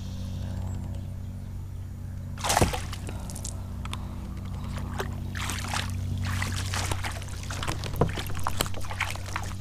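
Water splashing and trickling along a moving kayak, with a sharp splash about two and a half seconds in and a run of splashes and drips over the second half, above a steady low hum.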